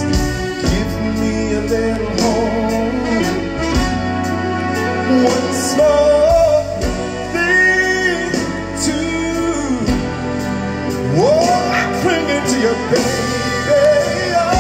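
Male singer singing live with a band backing him, the vocal holding long wavering notes; about eleven seconds in he slides up into a long held note.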